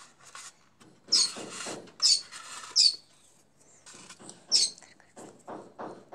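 Paper strip being folded and creased by hand: a few short, sharp rustles and crinkles, the loudest about one, two, three and four and a half seconds in, with fainter scratching between.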